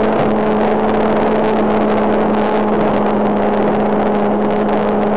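Radio-controlled Spitfire model airplane's motor running at a steady high throttle in flight: a constant buzz at one unchanging pitch over a rushing noise.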